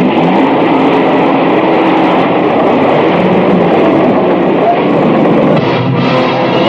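Loud, continuous background music from a 1970s Hindi film score.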